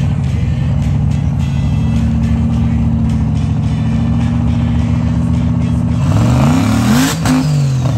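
Engine of a lifted mud-bog truck on tractor tires working hard under load as it pushes through deep mud, held at steady high revs. About six seconds in the revs climb and then drop back, with a rush of noise at the peak.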